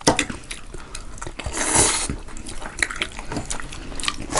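Close-miked eating sounds: a run of small clicks and chewing, with a louder noisy burst of eating about a second and a half in.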